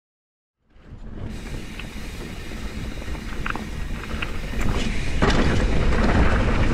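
Mountain bike riding down a dirt trail, heard from a GoPro on the bike or rider: wind buffeting the microphone over the rumble and rattle of the Trek Slash's tyres and frame on the ground. It comes in after a moment of silence and gets louder about five seconds in as the bike picks up speed.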